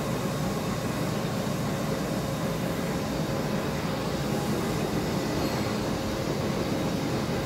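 Large Stanley sliding-gap engine lathe running with its big faceplate chuck spinning: a steady mechanical hum with a few faint steady tones over it.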